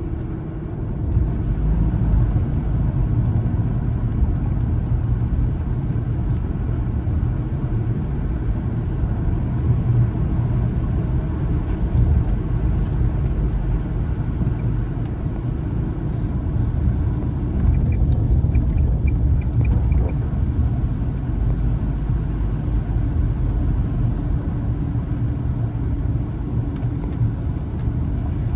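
Car driving, a steady low road-and-engine rumble.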